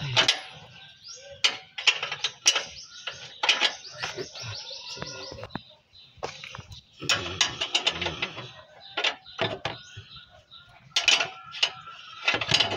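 Sharp metal clicks and knocks of hand tools on the bolts of a Suzuki Carry's front lower suspension arm, with runs of fast, even, ratchet-like clicking. Birds chirp in the background.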